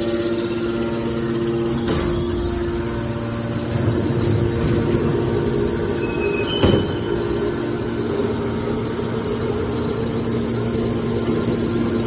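The hydraulic power unit of a scrap-metal baler, an electric motor driving a hydraulic pump, runs with a steady hum. There is a knock about two seconds in, and a sharper metallic clank near seven seconds, just after a brief high-pitched tone.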